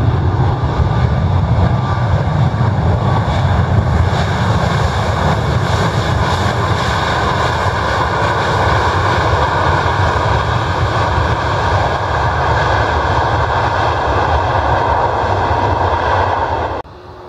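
Boeing 737 MAX 8 airliner's CFM LEAP-1B jet engines running loud and steady with a deep rumble as it rolls along the runway past the listener. The sound cuts off suddenly near the end.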